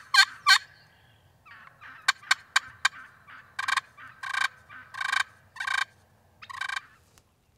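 Wild turkeys calling: the tail of a string of yelps, a quick run of short notes, then gobblers gobbling repeatedly, five loud gobbles in about three and a half seconds, fired up by the hen's and the call's yelping.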